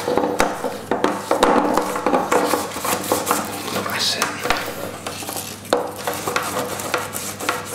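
Butter in its foil wrapper and fingers rubbing and scraping around the inside of a metal non-stick springform cake tin, with irregular small clicks and knocks of the tin being handled, as the tin is greased.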